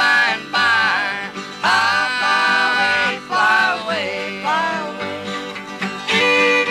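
Country-style music with plucked string instruments, its melody line sliding up and down in phrases over a steady accompaniment.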